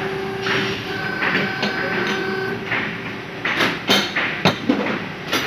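Steady hum of factory machinery, with a few sharp metallic clanks in the second half as bent steel pieces are handled and set down on the workbench.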